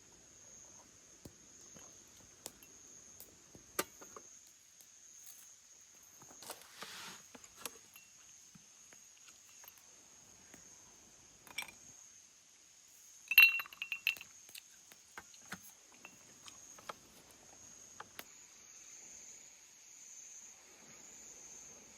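Insects chirring steadily at a high pitch, with scattered small clicks and knocks of things being handled. About thirteen seconds in comes one sharp, ringing clink, the loudest sound.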